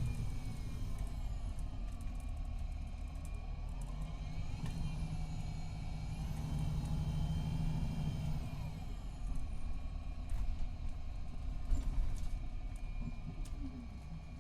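MCI D4500CT coach bus with a Cummins ISX12 diesel running under a low rumble, with whines that glide down and back up in pitch as it changes speed. Its Allison B500R transmission is described as in its last stages.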